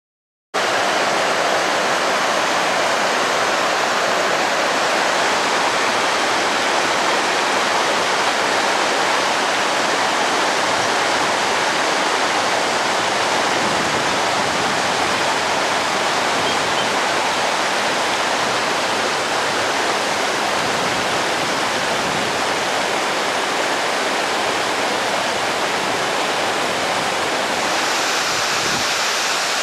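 Steady rush of water from Little Mertens Falls pouring over sandstone ledges, starting abruptly about half a second in. Its tone changes slightly near the end.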